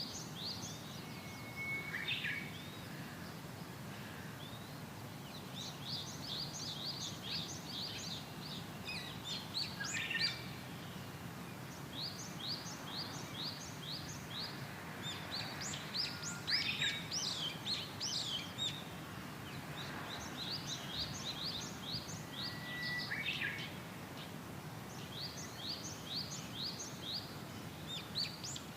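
Birds chirping in repeated runs of quick high trills, over a steady low hum.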